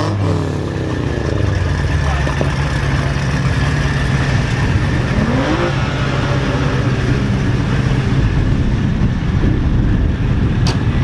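Car engine idling steadily, a low, even engine sound throughout.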